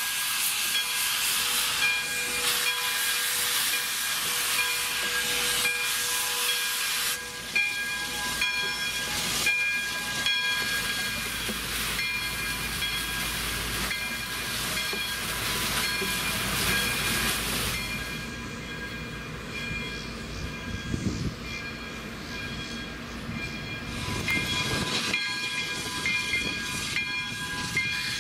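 Steam hissing from Santa Fe #3415, a 1919 Baldwin 4-6-2 Pacific steam locomotive, with a few faint steady high tones over the hiss.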